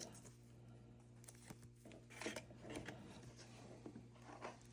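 Quiet handling noises: a few faint clicks and rustles as small objects are moved about, over a low steady hum.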